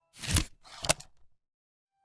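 Two brief scraping noises, the second ending in a sharp click, followed by a few faint ticks and then silence.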